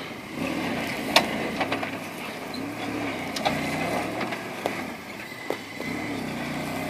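Mitsubishi Pajero SUV's engine running at low revs, its pitch rising and easing every second or so as it crawls over rutted dirt. A few sharp knocks are scattered through it.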